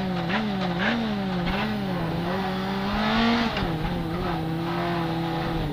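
Corsa kit car's Bill Falconer Engineering rally engine running hard, heard from inside the cabin. Its note rises and falls several times, then drops about three and a half seconds in and holds steady.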